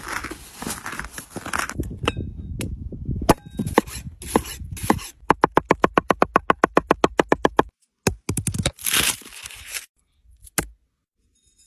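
A wooden pestle grinding in a wooden mortar, then a cleaver chopping fast on a wooden board, a very even run of about ten knocks a second lasting some two and a half seconds. The blade then scrapes across the board with a short gritty hiss, and a single knock follows.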